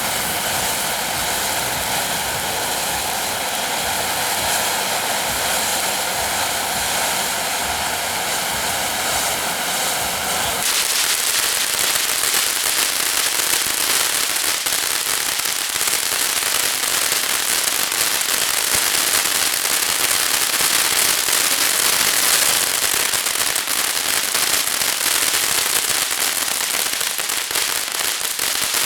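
Consumer ground firework fountain burning: a steady spraying hiss for about ten seconds, then it switches abruptly to dense, continuous crackling.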